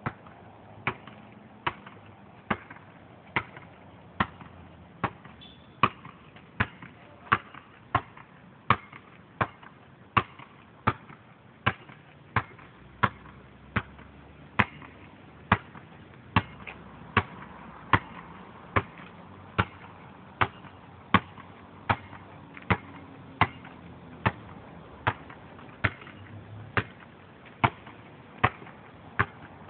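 A basketball dribbled on asphalt, bouncing at a steady even rhythm of a little over one bounce a second.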